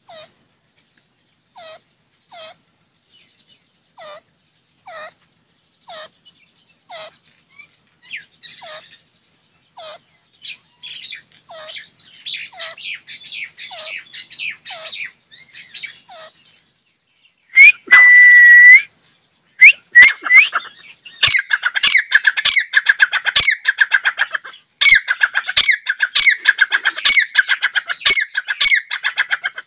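Caged francolin (teetar) calling. Short falling notes come about once a second at first and grow busier. One long steady whistle sounds about two-thirds of the way through, then a burst of loud, rapid, repeated calling fills the last eight seconds.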